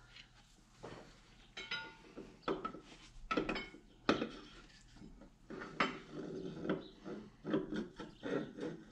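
Metal clinks and knocks as a steel cylinder sleeve with its piston is handled and set down into the cast-iron cylinder block of an International 986 tractor engine. There are about eight separate strikes at uneven intervals, some ringing briefly.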